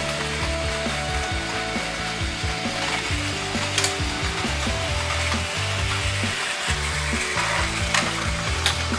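Battery-powered Plarail toy trains running on plastic track: a steady whirring, rattling hiss from their small motors and wheels, with a few sharp clicks, the clearest about four seconds in and near the end.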